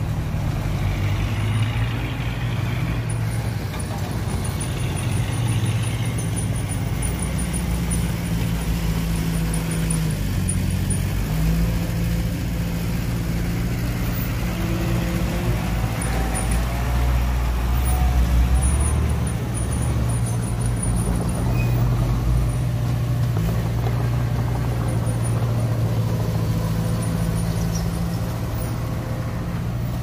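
Heavy diesel engine of earthmoving machinery running with a low, steady drone, its pitch shifting a few times as it works.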